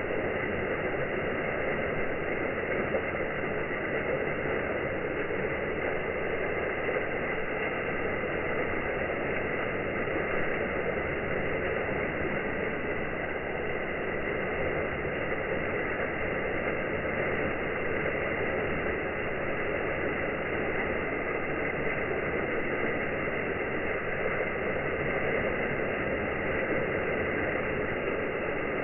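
Water running steadily over the rocks of a pond waterfall, an even rushing splash that does not change.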